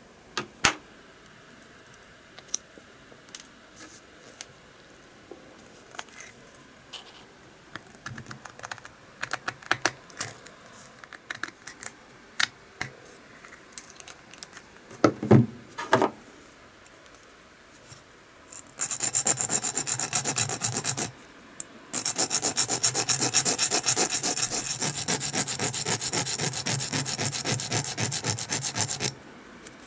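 Hand tool working a small stainless steel plate for a lure's tail blade: scattered light clicks and taps, two heavier knocks about fifteen seconds in, then quick, even rasping strokes for several seconds, broken by a short pause.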